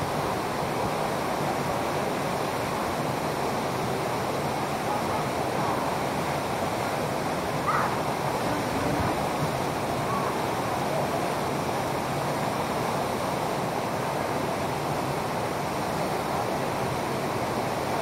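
Steady rushing of a waterfall pouring into a rock pool, an even wash of water noise with no change in level.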